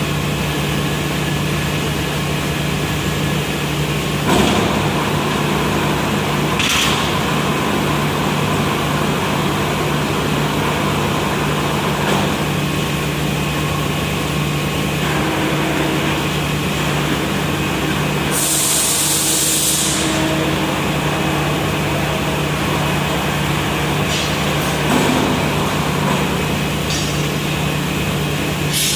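Industrial furnace running with a steady loud noise and a constant low hum, with a few short knocks. About two-thirds of the way through comes a sudden burst of hissing that lasts a second or two.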